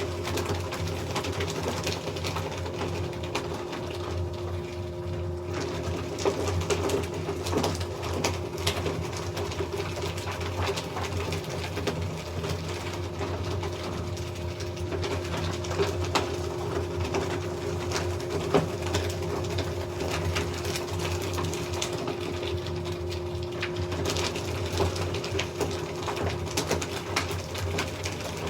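Electric paper shredder running steadily: a constant motor hum with many small crackling clicks as paper is cut.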